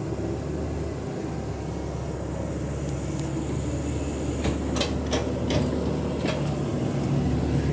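Excavator's diesel engine running steadily, with several sharp clicks and knocks about two-thirds of the way in.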